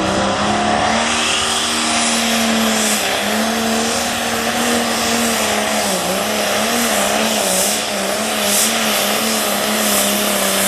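Super Farm class pulling tractor's diesel engine running at full throttle under heavy load as it drags the weight sled. The pitch holds high and steady, then wavers up and down in the second half as the engine speed fluctuates under the pull.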